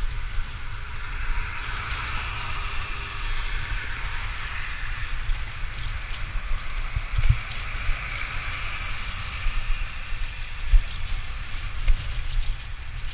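Wind buffeting the microphone of a camera moving along a road, a gusty low rumble with a few stronger bumps, over a steady rushing hiss of travel.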